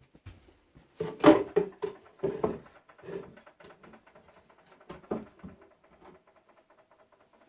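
Irregular knocks and scrapes of wood being handled, loudest in a quick cluster about a second in, with a few more knocks later and then faint clicks.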